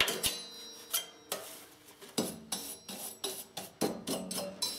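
Repeated sharp metallic clinks and scrapes, a stroke every third to half second, as caked grass clippings are cleaned off a steel ride-on mower cutting deck.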